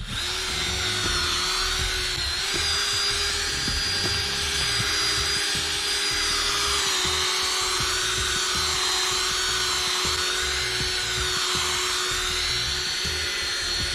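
Electric drill spinning a polishing pad to buff cleaner wax into an oxidised plastic vinyl decal: a steady motor whine with a hissy edge, its pitch rising and dipping slightly as the pad is worked across the surface.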